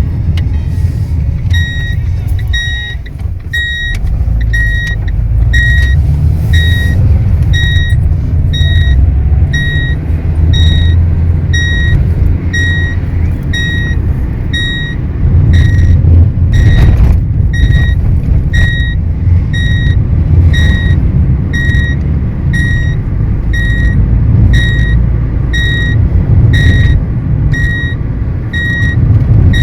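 Car seat belt warning chime beeping for an unfastened belt: short, evenly spaced high beeps, about one and a half a second, starting about a second and a half in. Beneath it is the low rumble of the running car.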